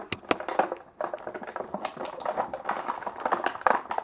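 Rapid, irregular clicks and taps of small plastic toys being handled and set down on a hard floor.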